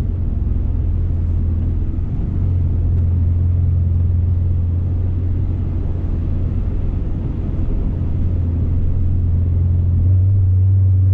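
Car engine and road noise heard from inside the cabin while driving: a steady low drone that shifts slightly and gets a little louder about ten seconds in.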